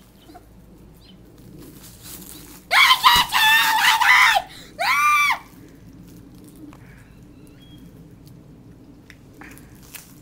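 Two loud wavering calls, the first long and the second short, rising and falling, which the boy takes for the creature's mating call.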